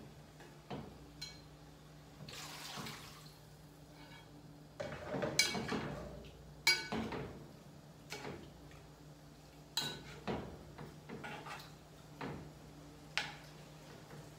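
Scattered clinks and knocks of a metal spoon against a bowl and cooking pot, with splashing water as cut onion and sweet pepper in water are spooned into a pot of chicken; the busiest clatter and splashing comes about five to seven seconds in.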